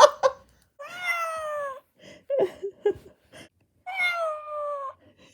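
Trendmaster Nadenade Neko-chan robotic kitten's speaker playing recorded cat meows: two meows about three seconds apart, each falling in pitch, with a few short clicks between them.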